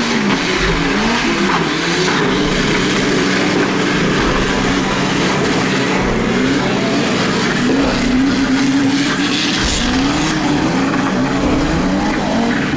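Off-road trophy buggy engines revving up and down over and over as the buggies churn through deep mud.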